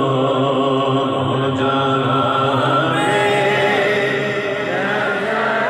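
A man reciting a naat unaccompanied into a microphone, singing long, drawn-out notes that slide from one pitch to the next.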